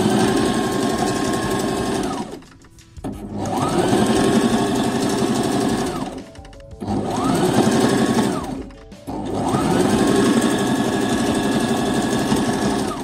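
Brother LS14S electric sewing machine stitching cloth at full speed with the foot pedal pressed down. It runs in four spells of about two to three seconds, with short pauses between. Each spell whines up to speed and winds down again.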